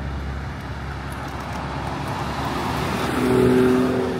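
Aston Martin V12 Speedster's twin-turbo V12 approaching and driving past slowly, swelling to its loudest about three and a half seconds in.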